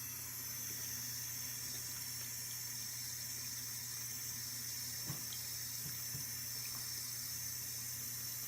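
Steady hiss of running water, with one faint knock about five seconds in.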